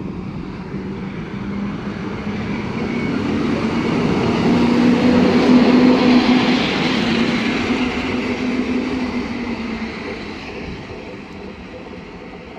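EU07 electric locomotive pulling away with its train and passing close by: a steady hum with the running noise of the wheels on the rails. It grows louder to a peak about five to six seconds in, then fades as the train moves off.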